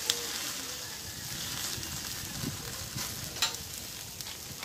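Meat sizzling on a wire grill over hot charcoal, a steady hiss with a couple of sharp crackling pops.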